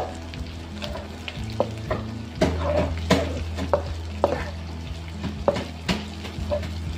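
Onions, shallots and sliced red chillies sizzling in hot oil in a non-stick wok while a nylon spatula stir-fries them, with repeated scrapes and taps of the spatula against the pan. A steady low hum runs underneath.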